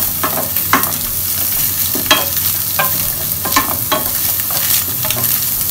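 Wooden spatula stirring and scraping diced vegetables and scrambled egg around a stainless steel frying pan, with repeated short scrapes about one or two a second over a steady sizzle of stir-frying in hot oil and butter.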